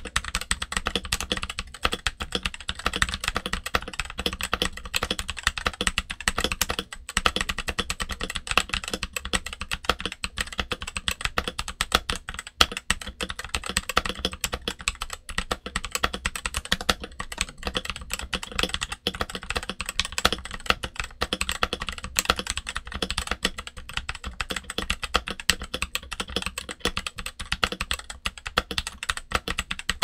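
Fast, continuous typing on a Redragon K530 Pro budget mechanical keyboard fitted with switch pads, lubed Redragon Brown tactile switches and OEM-profile double-shot ABS keycaps: a dense, unbroken stream of keystrokes.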